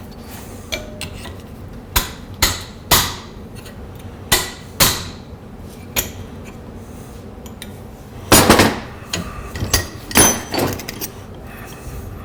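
Hammer striking a metal bracket to adjust its bend: about a dozen sharp, irregular blows with a short metallic ring, the loudest coming close together a little past the middle.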